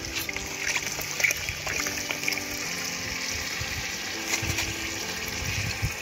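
Milk pouring from a carton into a large metal pot of fried grated carrots: a steady gushing, splashing pour.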